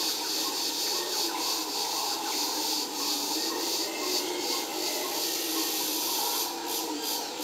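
Howler monkeys roaring in a steady, raspy chorus, with high-pitched insects droning above and pulsing near the end.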